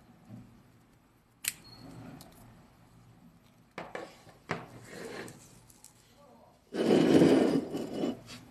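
Small plastic gouache paint pots being handled, their snap lids popped open, giving a few sharp clicks. Near the end comes a louder rubbing scrape lasting about a second and a half.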